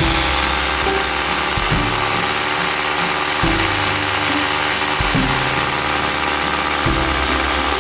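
Hammer drill motor running steadily, with background music whose bass notes change about every second and a half.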